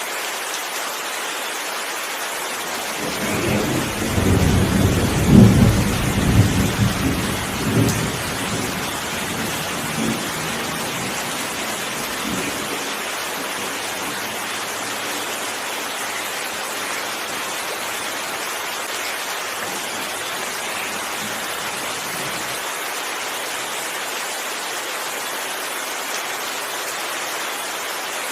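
Steady heavy rain, with a rolling thunderclap that builds about three seconds in, peaks a couple of seconds later and rumbles away over several seconds.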